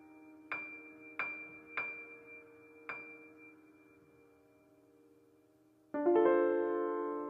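Background piano music: a held chord with four single high notes struck over it in the first three seconds, dying away, then a new full chord struck about six seconds in.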